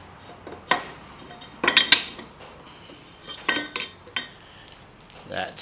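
Short steel angle-iron pieces and a bolt clinking and knocking as they are handled and set against a wooden block. There are several separate metallic clinks, a quick cluster of them about two seconds in, and some ring briefly.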